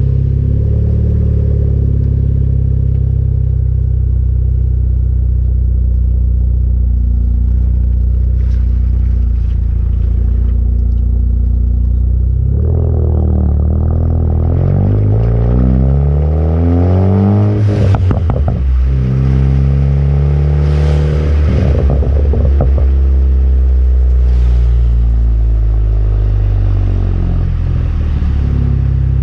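Car exhaust with an AWE Track system and a crackle tune: a steady exhaust drone. About halfway through, the revs climb over several seconds, then a burst of crackles and pops comes as they fall. A second, shorter rise brings another round of crackles.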